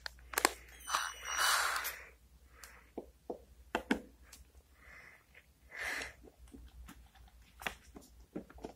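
Steel drill and screwdriver bits clicking and rattling against the slots of a plastic bit case as they are handled, with a few sharper knocks and short scraping rustles.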